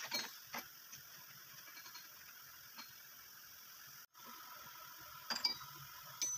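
Steel clamping hardware clinking: a flange nut put onto a threaded stud and strap-clamp parts set down on steel. There are a few sharp metallic clinks at the start and another cluster near the end, over a faint steady hum.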